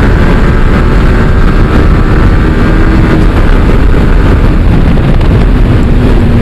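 Loud, steady wind rush on the microphone over a Yamaha R15M sport motorcycle's single-cylinder engine running at about 90 to 100 km/h.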